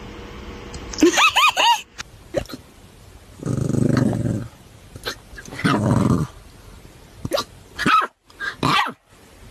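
A puppy vocalising: a quick run of high, squeaky yips about a second in, then two short low growls, and several brief sharp squeaks near the end.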